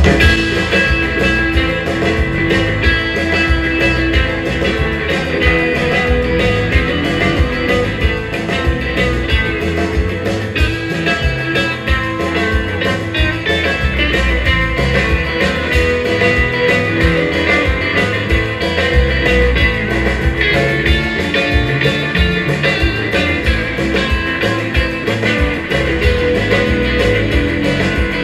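A live rautalanka band playing an instrumental, with electric guitars over a drum kit.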